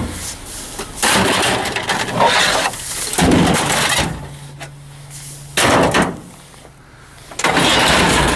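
Discarded electronics being shoved and shifted by hand in a dumpster: plastic and metal computer cases clattering and scraping against junk in several loud bursts.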